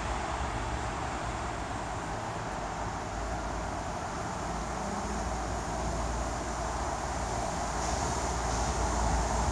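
Steady outdoor background noise picked up by a phone's microphone: an even hiss over a continuous low rumble, growing slightly louder near the end.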